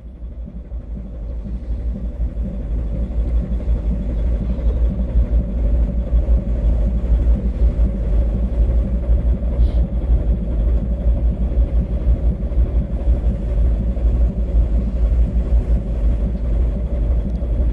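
Boat's engine running with a steady low rumble, growing louder over the first three seconds and then holding level.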